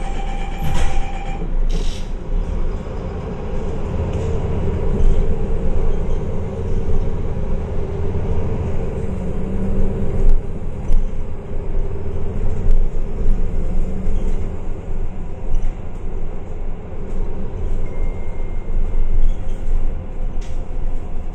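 MAN A22 single-deck city bus under way: steady diesel engine and road rumble with a drivetrain whine, and a short hiss about two seconds in.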